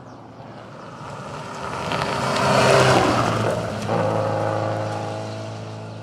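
Rally car passing at speed on a dirt stage: the engine note builds as it approaches, is loudest about three seconds in, drops in pitch a second later as it goes by, then fades away.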